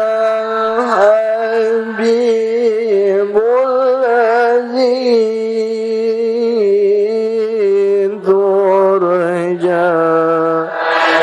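A single voice chanting Arabic devotional verses in long, melismatic held notes with slow wavering ornaments and small steps in pitch.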